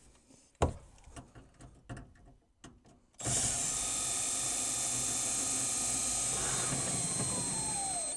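Cordless drill driving a mounting bolt to secure an over-the-range microwave to the cabinet above it: a few light clicks and knocks, then about three seconds in the drill runs steadily for some five seconds, its pitch falling as it slows just before it stops.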